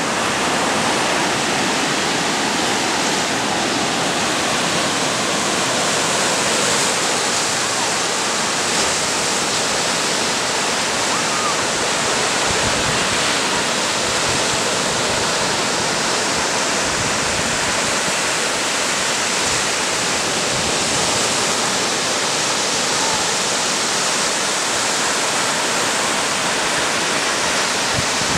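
Ocean surf washing onto a sandy beach, a steady, even rush of water.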